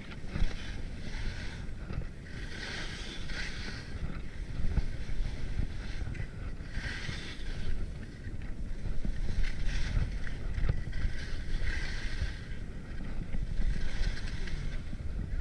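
Skis scraping and hissing over packed snow in patches every second or two, under a steady low rumble of wind on the microphone.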